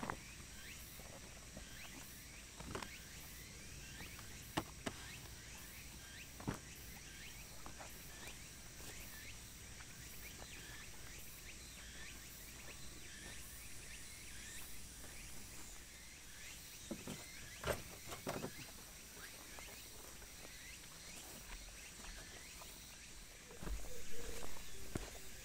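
Insects chirping steadily in the grass, with a few scattered faint knocks and rustles from a camping ground sheet being handled and laid out, and a louder rustle near the end.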